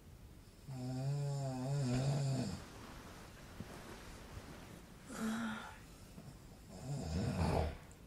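A man snoring: a long, pitched, droning snore about a second in, a short snore around the middle, and a rougher, rattling snore near the end.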